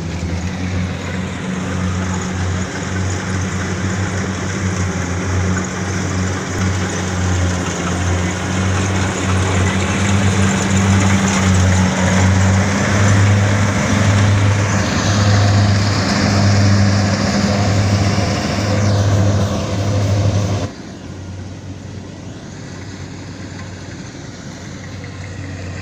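Kubota DC70 combine harvester's diesel engine running loudly with a steady hum and machinery noise. It drops suddenly to a much fainter level about five seconds before the end.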